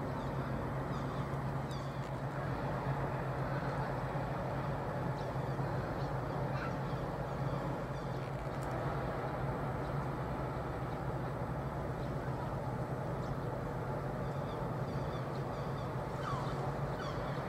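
Steady low hum of the passing container ship MSC Quitterie, with short bird calls scattered over it.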